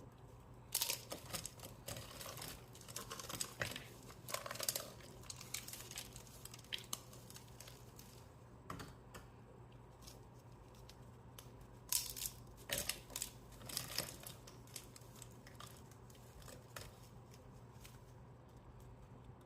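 Irregular crackling: clusters of sharp little snaps and ticks, thickest in the first five seconds and again from about twelve to fifteen seconds in, over a steady low hum.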